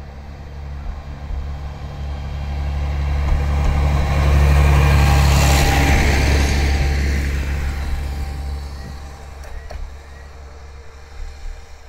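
Tsugaru Railway Tsugaru 21 diesel railcar passing close by: its engine's low drone and the rolling noise of its wheels grow louder, peak about five seconds in, then fade as it moves away.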